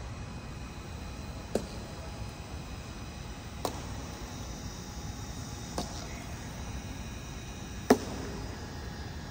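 Honour guards' boots striking a stone floor in a slow ceremonial march step: four sharp footfalls about two seconds apart, the last the loudest, over steady background noise.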